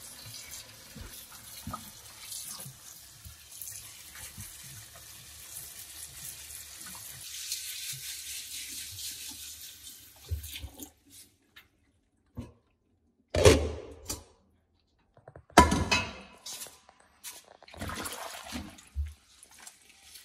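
Kitchen tap running steadily into a stainless-steel sink while bunches of leafy greens are rinsed under the stream. About ten seconds in the flow stops, and a few loud, sudden noises from the washing follow.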